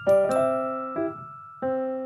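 Cute background music: a bouncy keyboard melody of short, bell-like notes, each struck and fading.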